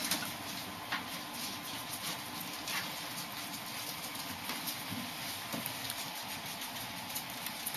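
Scattered light taps and clicks, about one every second or two, from a kitten climbing about inside a wire ferret cage, its paws and claws on the wire and shelves, over a steady hiss.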